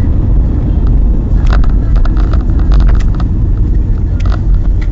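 Steady low rumble of a car driving, heard from inside the cabin, with a few brief higher-pitched sounds about halfway through.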